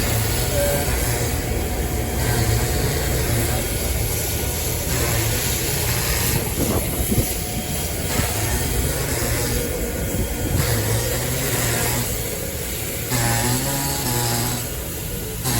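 A vehicle running with a steady low rumble.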